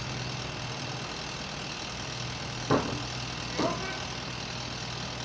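A vehicle engine idling steadily with a low hum. Two brief sharp knocks come about a second apart near the middle.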